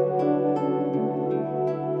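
Gentle new-age background music: plucked notes every few tenths of a second over a held low tone.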